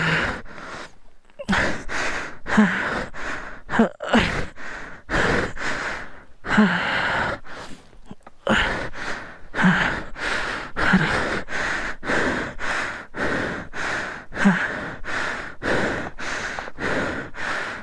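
A man panting hard and fast, close to the microphone, with a short grunt caught in some of the breaths: out of breath from heavy exertion.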